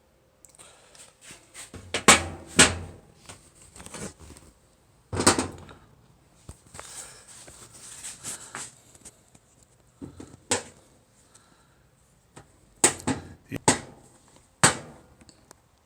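Scattered clicks and knocks of plastic washer fill-valve parts being handled and pressed together during reassembly, with soft rubbing between the louder clicks. The sharpest clicks fall about two seconds in, at about five seconds, and in a quick cluster near the end.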